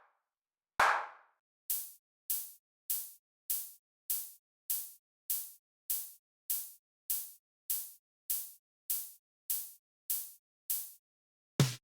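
Played-back percussion samples: a single clanging hit about a second in, then a steady run of short, bright ticks about every 0.6 s, and a deeper, heavier hit near the end.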